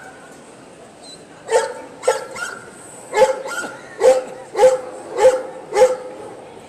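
A dog barking repeatedly, about eight short sharp barks at roughly two a second, starting about a second and a half in.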